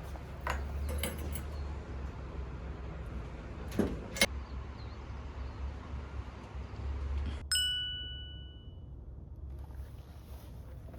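A few light clicks and two sharp knocks, then, about seven and a half seconds in, a single bright metallic ding that rings and fades over about a second.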